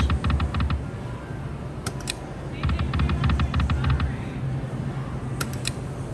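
Video slot machine spinning its reels: runs of rapid electronic clicks, several a second with low thuds under them, as the reels tick round and land, one run at the start and another about two and a half seconds in. A short sharp tone sounds shortly before each spin.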